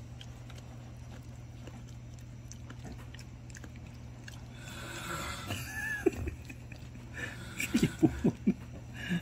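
A dog mouthing and chewing a soft, wet piece of seaweed held out by hand. It is quiet at first, then from about halfway there are a few sharp wet smacks and clicks of chewing, loudest near the end.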